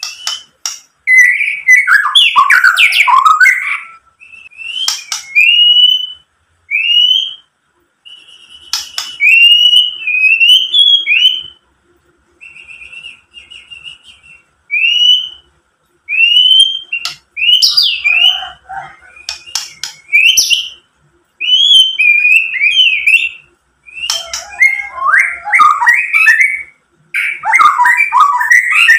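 White-rumped shama singing: a string of short rising whistled notes, broken by bursts of fast, varied chattering phrases and sharp clicks near the start, about two-thirds through and near the end.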